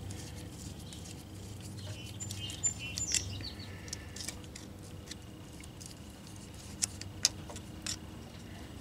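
A few small metallic clicks and scrapes of a screwdriver tightening hose clamps on the rubber fuel lines of an electric fuel pump, with birds chirping faintly in the background.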